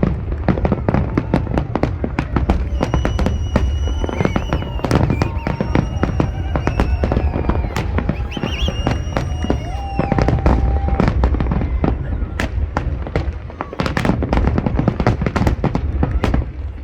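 Fireworks display: rapid, dense bangs and crackles over a low rumble of booms, with held whistling tones from whistle shells from about three to ten seconds in.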